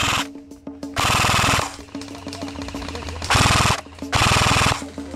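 Airsoft electric guns firing full-auto: three short rapid-fire bursts of about half a second each, the second and third close together. A steadier, quieter background runs between the bursts.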